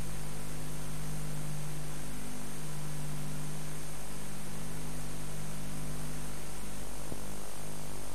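Steady electrical mains hum with hiss from an old videotape's soundtrack, with no music or voice on it.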